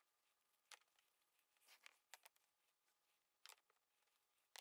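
Near silence, with a few faint, short taps and a brief rustle as small wooden blocks are handled on a workbench.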